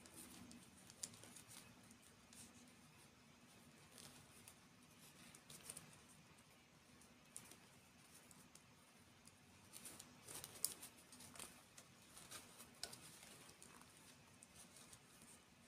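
Faint, scattered small clicks and ticks, a few every second, growing busier for a few seconds about two-thirds of the way through, over a low background hum.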